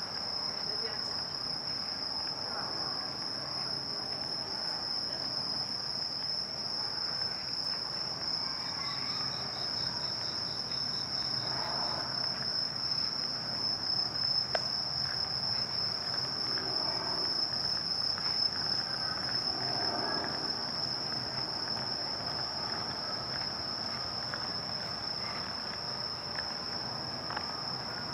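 Crickets chirping in one continuous high trill. A second insect joins with a rapid pulsing call for a few seconds about a third of the way in. A faint city hum sits underneath.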